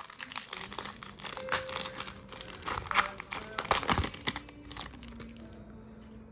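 Crinkling and tearing of a plastic trading-card pack wrapper being handled and opened, with dense rustles and clicks that die down after about four seconds.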